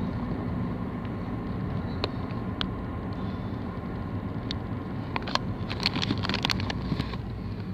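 Steady low rumble of a moving car heard from inside the cabin. About five seconds in, a quick run of light clicks and taps cuts in over it.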